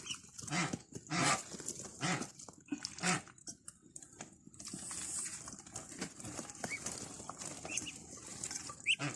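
Domestic ducks and geese calling, a short call about every second for the first three seconds, then fainter scattered calls.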